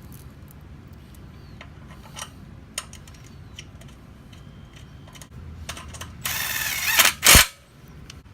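Light scattered clicks of small electrical connectors being handled and pushed together on headlight wiring. About six seconds in comes a louder rushing noise, ending in one sharp loud click just past seven seconds.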